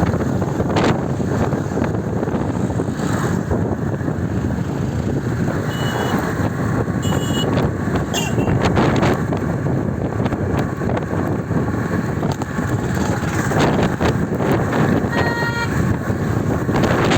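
Steady rush of the flooded Tungabhadra river. Vehicle horns honk briefly a few times, about six to eight seconds in and again near the end.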